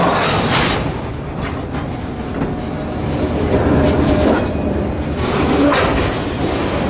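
Covered hopper freight cars rolling slowly through yard switches, their steel wheels clicking and clanking over rail joints and frogs, with several louder knocks.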